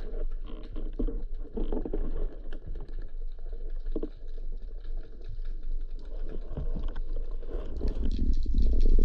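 Underwater sound through a camera's waterproof housing: a muffled low rumble of moving water with scattered small clicks and crackles, growing louder near the end.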